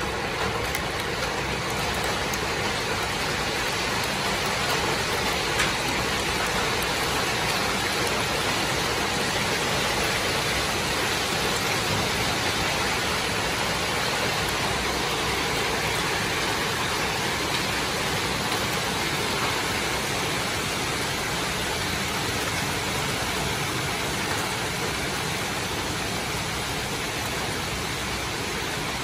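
Heavy rain pouring down steadily in a dense, even hiss, with one sharp tap about six seconds in.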